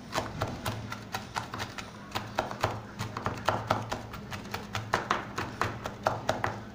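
Knife chopping pointed gourd (potol) peels on a plastic cutting board: quick, uneven knocks of the blade on the board, about five a second, over a steady low hum.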